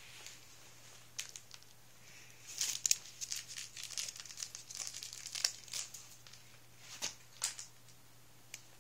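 Puppies scrambling over a crinkly fabric play mat and its toys: scattered crinkling and rustling, busiest from about two and a half to six seconds in.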